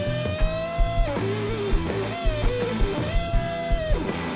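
Gibson SG electric guitar playing a live blues-rock solo: long held notes bent up and wavering in pitch, with a pause about a second in, over the band's drums and bass guitar.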